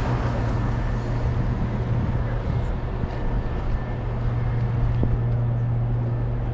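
City street noise with a steady low engine hum.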